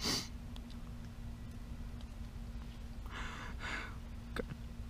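A man's quiet sniff, then two audible breaths about three seconds later and a small click near the end, as he holds back tears. A faint steady hum runs underneath.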